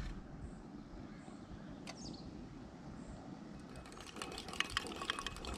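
Quiet outdoor background with a faint bird chirp about two seconds in. From a little past halfway, a quick, irregular run of light metallic clicks and clinks: a utensil working in a small metal camping pot.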